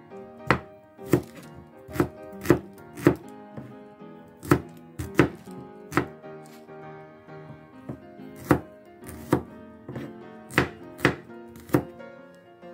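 Kitchen knife slicing shallots on a plastic cutting board: sharp knocks of the blade striking the board, about fourteen of them at an uneven pace of one or two a second.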